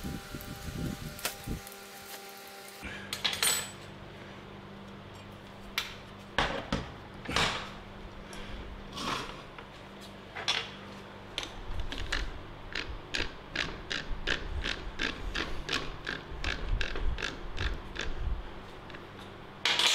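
Metal hand tools clicking and knocking on a steel 3-jaw lathe chuck as it is fitted to a rotary welding positioner, with a fast run of clicks in the second half. A fan hums throughout, and a whine stops about three seconds in.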